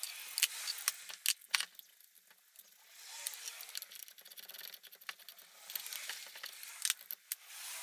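Hands working over a Jeep alternator during teardown: scattered small metallic clicks and clinks of the aluminium housing, cover and loose fasteners being handled, with a few sharper knocks about a second and a half in and again near seven seconds.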